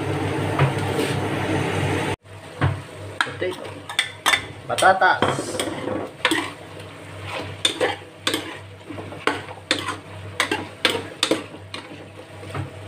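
Chicken and potatoes sizzling steadily in a covered steel pot. Then, after a sudden break, a spoon stirring them with many quick scrapes and knocks against the pot.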